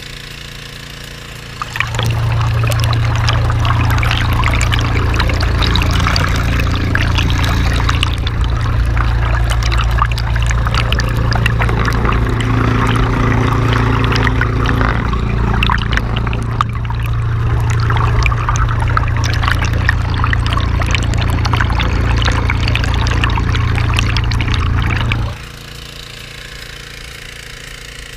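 Water pouring and rushing down a gold dredge's sluice box close to the microphone, a heavy loud wash that sets in about two seconds in and cuts off abruptly near the end. The dredge's engine and pump run steadily under it and are heard alone before and after the rush.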